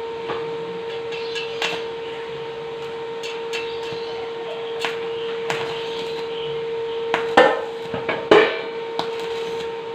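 Light knocks and taps of metal on steel hollow tube during welding work, scattered through, with two louder knocks about two thirds of the way in, over a steady hum.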